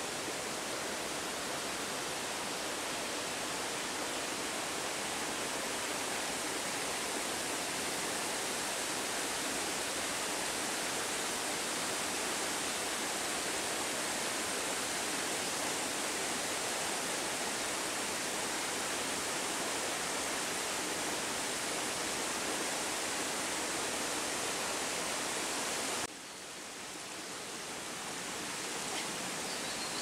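Waterfall rushing: a steady, even roar of falling water. Near the end it drops suddenly to a slightly softer rush that slowly swells back up.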